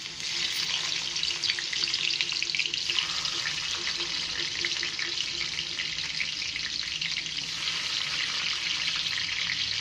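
Ginger and garlic sizzling in hot oil in an aluminium karahi. The dense crackle starts suddenly just after the start, as they go into the oil, and then runs on steadily.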